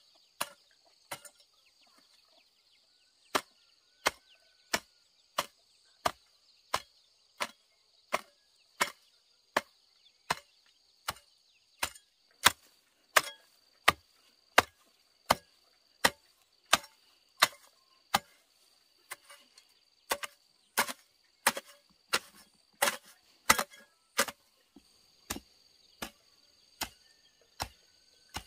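Evenly paced chopping strokes of a blade into bamboo, about three every two seconds, starting after a short pause about three seconds in. Under them runs a steady high buzz of insects.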